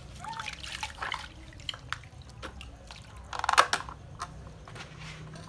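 Water splashing and dripping in a plastic basin as a baby monkey is washed by hand, with many small splashes and one louder burst a little past halfway.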